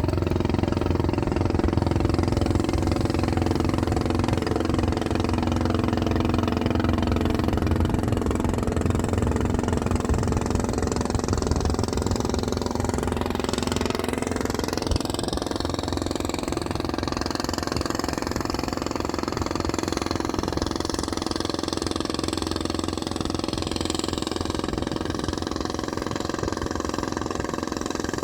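A boat engine running steadily at a constant speed, getting slightly quieter over the stretch.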